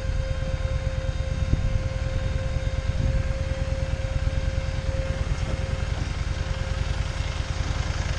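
Harley-Davidson Street 750's V-twin engine running steadily on a rough dirt road, with a steady whine alongside it.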